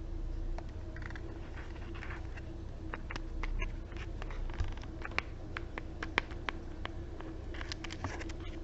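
Small objects handled by hand: soft rustling at first, then a run of light, irregular clicks and taps, with more rustling near the end.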